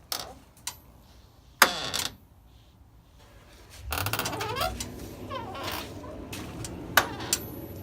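Sharp metallic clicks and clacks from handling a steering wheel on its quick-release hub, the loudest about one and a half seconds in and again near seven seconds, with rustling in between.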